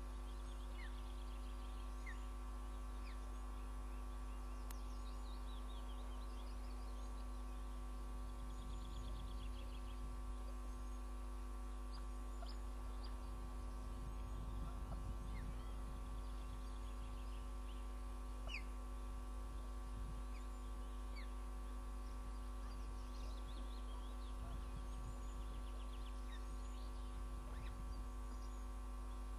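Steady electrical mains hum, with faint high bird chirps and short trills now and then.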